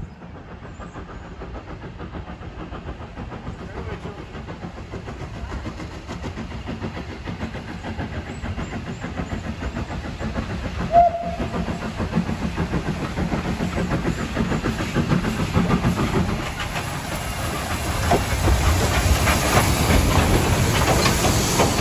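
Double-headed steam train, led by locomotive No. 752, approaching and running past: exhaust chuffing and wheels on the rails, growing steadily louder as it nears. A brief sharp note sounds about halfway through.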